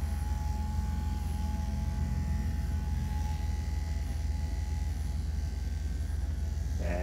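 Cordless electric dog clippers running steadily while trimming the fur around a dog's face, with a steady low hum underneath.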